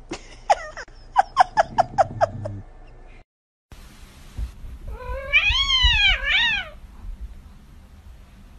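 Cats meowing: a quick run of about seven short, falling cries, then after a brief gap one long meow that rises and falls, followed by a shorter meow.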